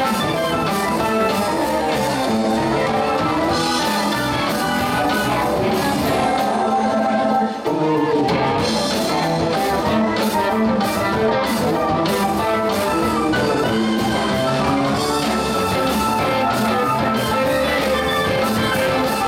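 Live rock band playing: electric guitar, keyboards, bass and drum kit, with a momentary dip in the sound about seven and a half seconds in before the band carries on.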